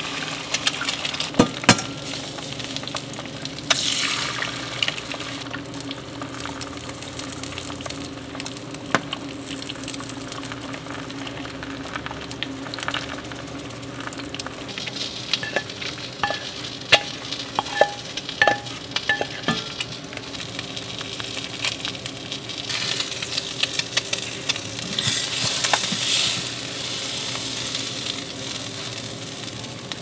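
Egg frying in a nonstick frying pan, a steady sizzle and crackle, with scattered clicks and scrapes of utensils against the cookware.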